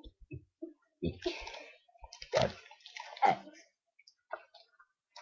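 A young boy burping letters of the alphabet: three short burps, the first about a second in.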